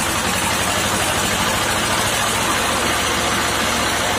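HMT 1811 tractor's diesel engine running steadily at idle, with an even, rapid low pulse.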